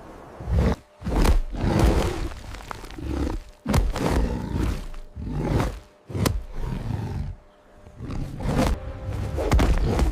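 Lions roaring: a series of loud roars, each a second or so long, with short breaks between them.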